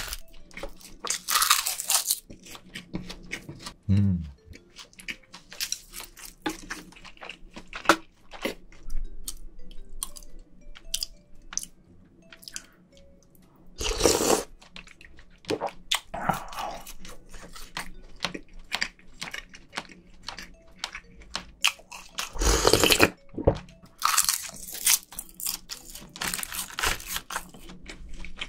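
Close-miked eating: chewing and biting with many small wet mouth clicks, and a slurp of spicy seafood-stew broth from a spoon about fourteen seconds in.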